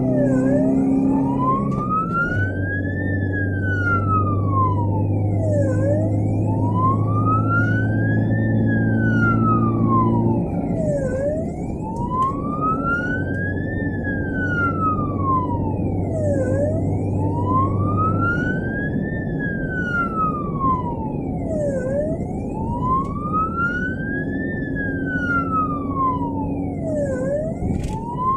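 Ambulance siren in wail mode, heard from inside the vehicle: a slow rise and fall in pitch repeating about every five and a half seconds, over engine and road noise.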